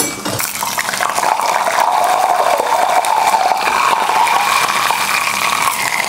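Sliced coconut sizzling steadily in hot ghee in a small pan, frying brown, with a few light clicks of a spoon lifting the pieces out.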